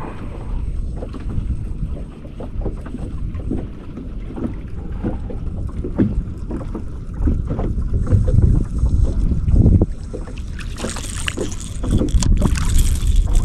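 Wind buffeting the microphone on an open fishing boat, a heavy low rumble with scattered knocks and bumps. A louder hiss rises near the end.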